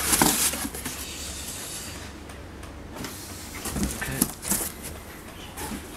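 Cardboard rustling and scraping as inner boxes are slid out of a cardboard shipping carton, loudest in the first second and fading, with a few light knocks about four seconds in.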